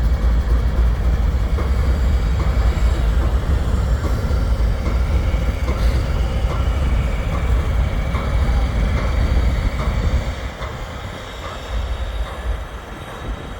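Diesel locomotives of a light-power move passing close by with a heavy, low rumble and their wheels clicking steadily over rail joints. The rumble drops off about ten seconds in as the last unit goes by.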